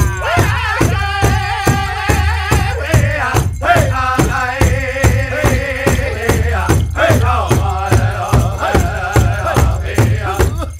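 Powwow song for the prairie chicken dance: a steady, even drumbeat under group singing in a wavering, chant-like style.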